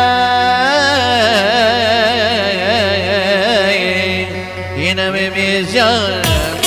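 Live Turkish folk dance music: a long held melody note with strong vibrato over a steady low drone, with sharp drum strokes coming in near the end.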